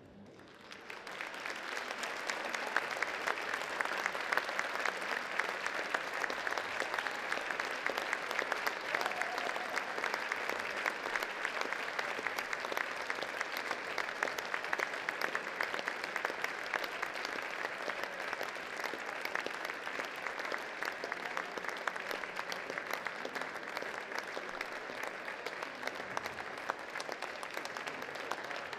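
Audience applauding, a dense steady clapping that builds up about a second in and holds.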